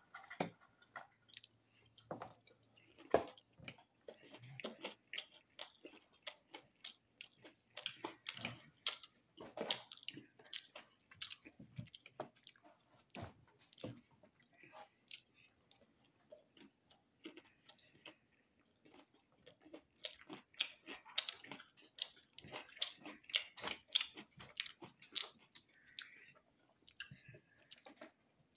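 Close eating sounds: a fork tapping and scraping among boneless chicken wings in a cardboard takeout box and a small dip cup, with chewing in between. The sounds are quiet, short and irregular.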